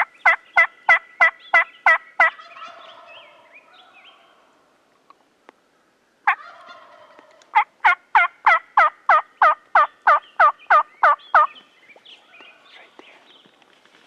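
Turkey yelping: two runs of evenly spaced, loud yelps at about three a second, the first stopping about two seconds in and the second starting about halfway through and lasting about four seconds.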